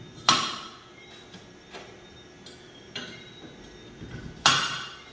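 Steel engine valves clinking against a BMW M10 cylinder head as they are set one by one into their guides: two sharp metal-on-metal clinks that ring briefly, one just after the start and one near the end, with a few lighter taps between.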